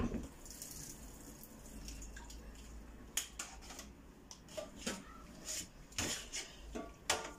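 Short knocks and clatter of metal mesh cooker-hood grease filters being handled in a stainless-steel sink, with a little dripping water; the knocks come from about three seconds in and are loudest near the end.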